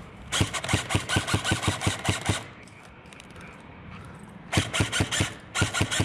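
Airsoft replica firing rapid strings of shots: a run of about fifteen, roughly eight a second, then two shorter strings of about five shots each near the end.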